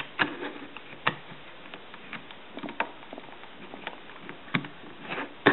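Scattered light clicks and taps of cheap plastic as the battery cover is slid onto the back of a Nokia 2855i flip phone and the phone is handled, with a sharper click about a second in and another at the end.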